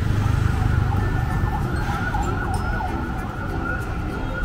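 Street traffic rumble with a wavering, siren-like high tone over it.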